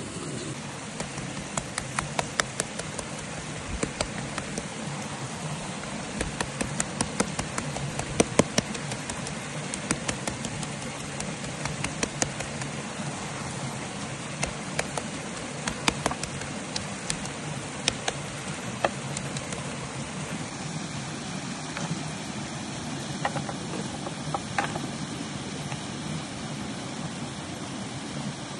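A steady rushing noise with irregular sharp crackles and pops scattered through it, thinning out in the last third.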